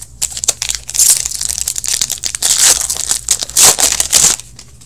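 Foil wrapper of an Upper Deck Artifacts hockey card pack crinkling loudly as it is torn open and peeled off the stack of cards. The crackling runs from about a second in until shortly before the end, after a few light clicks.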